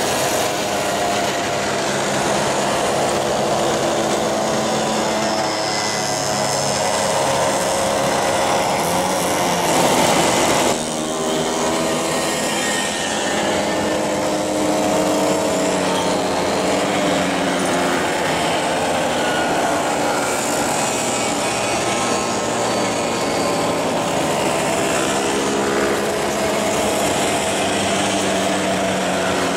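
A long procession of classic two-stroke mopeds riding past one after another, many small engines buzzing at once, their pitches rising and falling as riders pass and change throttle.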